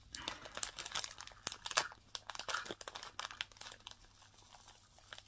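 Crinkling and rustling of a small handmade gift pouch being handled and opened, with light clicks and taps. It is busiest in the first three seconds or so, then fainter.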